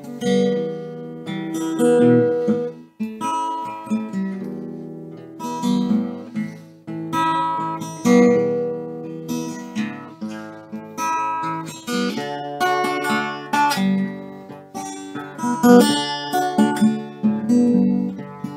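Solo acoustic guitar: picked notes and strummed chords that ring out and fade between attacks.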